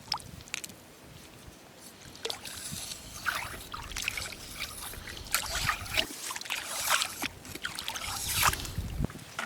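Irregular scraping, squelching and splashing of hands digging clams out of wet sand and shallow water at low tide, quiet for the first couple of seconds and busier after.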